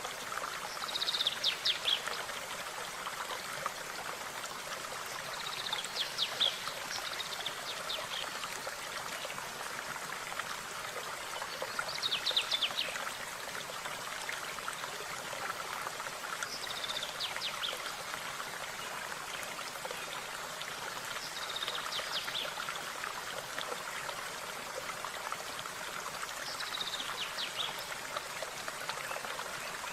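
A stream running steadily, with a small songbird repeating the same short, rapid song phrase about every five seconds, six times.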